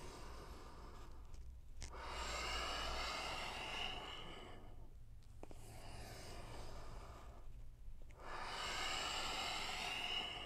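A man breathing deeply and audibly, about four long slow breaths in and out of roughly two seconds each with short pauses between, paced with a stretching exercise.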